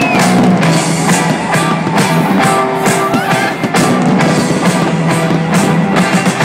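Loud pop-rock music with a steady drum beat, played over the fireworks display's sound system, mixed with fireworks bursting overhead.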